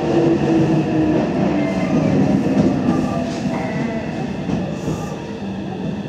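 Running sound of a Nagoya Municipal Subway 7000-series train heard inside the car: rumbling wheel and track noise under a whine from the traction motors that falls slowly in pitch as the train slows into the station. The noise gets quieter toward the end.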